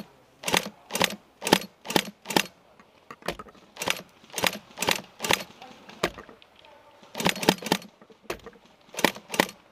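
Airsoft rifle firing single shots close by, about fifteen sharp cracks in uneven groups, roughly two a second, with short pauses between groups.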